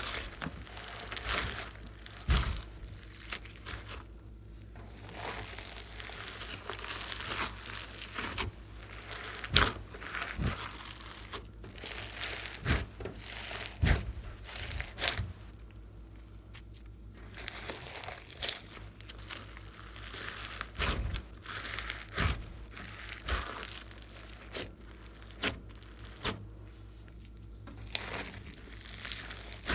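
Glossy slime being squished, stretched and mixed by hand, giving a steady run of irregular sticky clicks and crackles.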